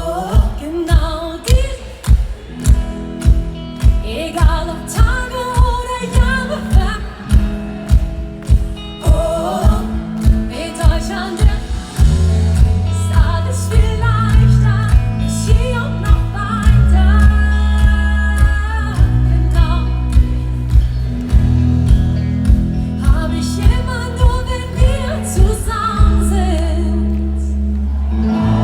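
Live schlager-pop band playing with a steady kick-drum beat of about two beats a second, with singing over it. A heavy bass line comes in about halfway through and the music gets fuller.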